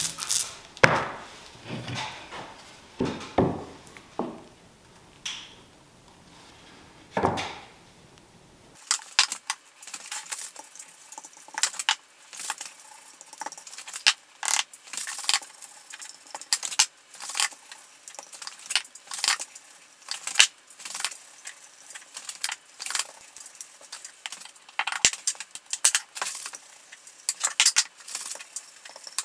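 Glued end-grain wooden blocks knocking and clicking together as they are stacked and pushed into an end-grain butcher block: many short, sharp, irregular knocks, thickest in the later part.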